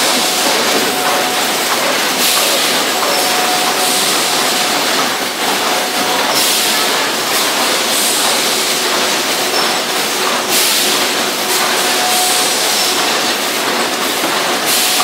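Popsicle boxing packaging machine running: a steady, loud mechanical clatter, with brief hissing surges every couple of seconds.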